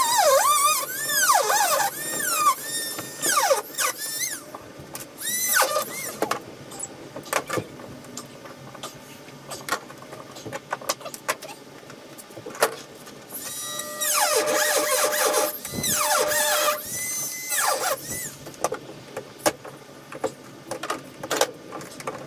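A tool cutting small notches in a fiberglass boat console to run speaker wires, giving high squeals that slide up and down in pitch. The squealing comes in spells, strongest in the first few seconds and again from about 14 to 18 seconds in, with scattered clicks in between.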